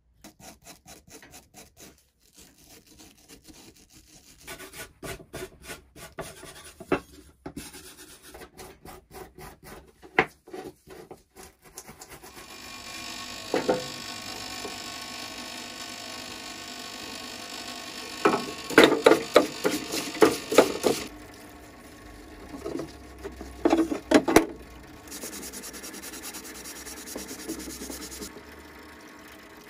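Stiff brush and scouring pad scrubbing rusty steel pulley parts in a parts washer, in quick repeated strokes. From about the middle, a steady rush of the washer's flowing fluid runs underneath, and the strokes grow louder in two spells near the end.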